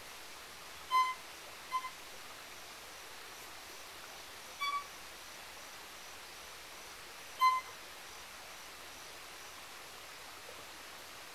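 Solo violin playing short, high single notes, four of them a few seconds apart, with a quick pair near the start. It is imitating the song of a pygmy wren-babbler.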